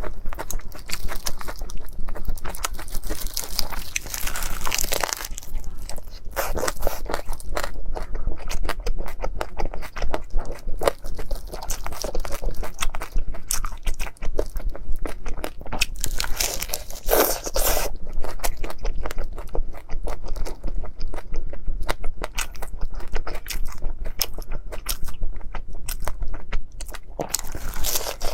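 Close-miked eating of crunchy food: a dense run of crisp crunches and crackles as it is bitten and chewed, with louder bursts of crunching a few times.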